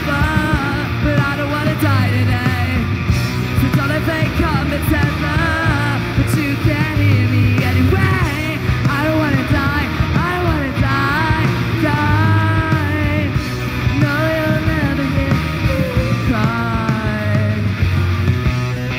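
A live punk rock band playing loudly: electric guitar, bass guitar and drums, with a vocalist singing and yelling over them throughout.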